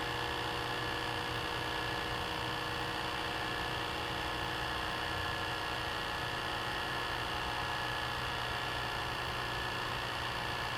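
VHS player running a tape in playback, miked very close: a steady motor hum and whir with several fixed tones over a light hiss, unchanging throughout.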